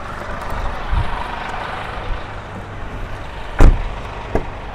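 A single loud car-door thump about three and a half seconds in, followed by a lighter click, over a steady low background noise.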